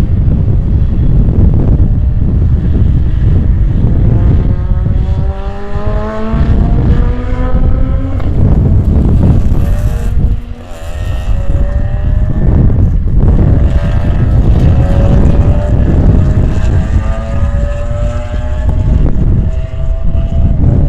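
Cars' engines accelerating along the circuit, rising in pitch again and again as they pull through the gears, several cars in turn, under heavy wind buffeting on the microphone.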